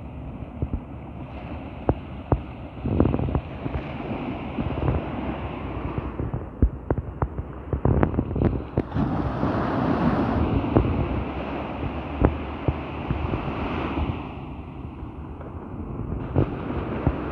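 Sea waves breaking and washing on a beach, one surge building and falling off about halfway through, under gusty wind buffeting the microphone with frequent sharp thumps.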